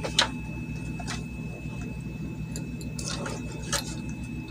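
A few light clicks and scrapes of a wire and fingers handling a circuit board, over a steady low electrical hum.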